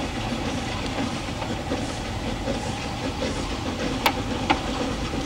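Narrow-gauge train running along the line: a steady rumble and clatter of wheels on the track, with two sharp clacks in quick succession near the end.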